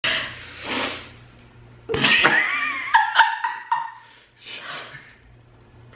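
People laughing and giggling. A sudden high-pitched squeal comes about two seconds in, followed by a few short, high-pitched laughs.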